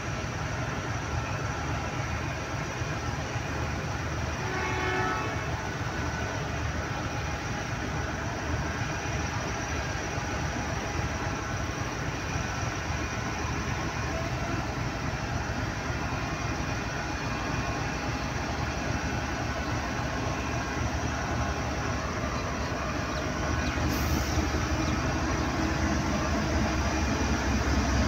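GEU-40 diesel-electric locomotive running as it hauls a passenger train slowly out of the station, a steady engine rumble with rail noise. A short horn note sounds about five seconds in, and the rumble grows louder near the end as the train passes close.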